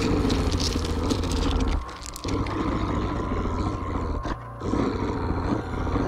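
Deep, rough growling of a large beast-like creature with a heavy low rumble, in three long stretches broken by short pauses about two seconds and about four and a half seconds in.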